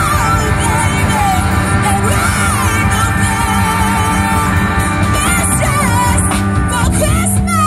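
Live band playing, a singer's voice carrying a melody over electric guitars, drum kit and keyboard.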